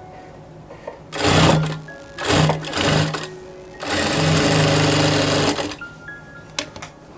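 Industrial single-needle sewing machine stitching in short runs: a brief run about a second in, two quick runs around two to three seconds, then a steady run of about two seconds that stops near six seconds. Soft background music plays underneath, and there are a couple of sharp clicks near the end.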